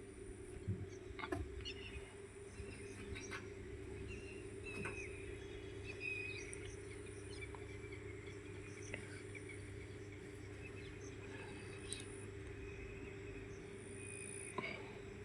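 Outdoor ambience: birds chirping here and there over a steady low hum, with a few faint clicks.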